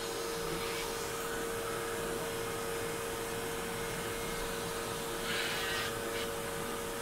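Electric nail drill running with a steady whine as its sanding bit grinds down a thickened fungal toenail.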